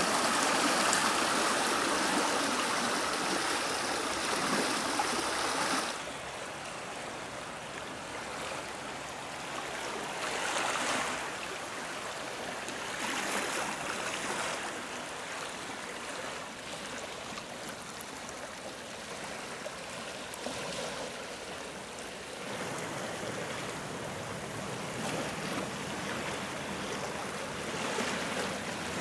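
Steady rushing of a swollen, fast-flowing river in flood, with muddy water churning over its bed. The rush drops suddenly about six seconds in and grows louder again later.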